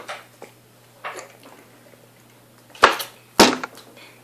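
Knocks from a 2-litre plastic soda bottle being handled: a few faint clicks, then two loud sharp knocks about half a second apart near the end.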